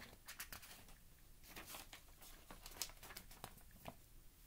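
Faint rustling and soft crackles of a paper booklet being handled as its page is turned.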